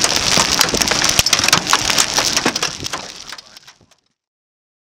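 Heavy wind-driven rain pelting a moving car, a dense crackle of drop hits with a hiss of wind, fading out about three and a half seconds in.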